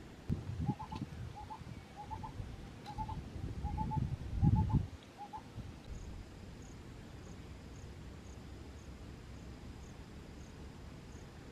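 A bird calling in a run of short double notes, about two a second, stopping about halfway through. Low rumbling underneath is loudest about four and a half seconds in.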